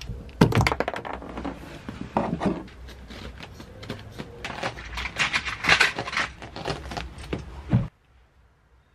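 A hardboard door panel and the insulation behind it being handled on a van door: a string of thunks and knocks as the panel is pressed and tapped against the door, with rustling of the insulation. The sound cuts off abruptly about a second before the end.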